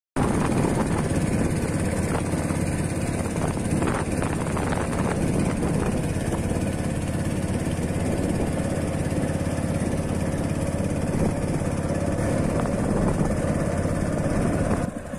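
Motorboat engine running steadily as the boat travels across the water, its level dropping just before the end.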